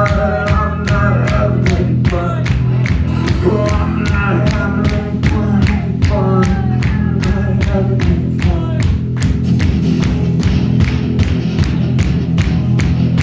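Live rock band playing loud, with a steady drum beat and a dense bass and guitar underneath a sung vocal line; the voice drops out about nine seconds in, leaving the band playing on.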